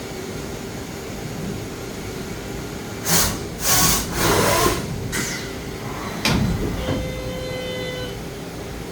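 DMG Mori NHX5500 horizontal machining center running with a steady hum. About three seconds in come three loud hissing bursts, then a sharp clunk near the six-second mark, followed by a brief steady whine.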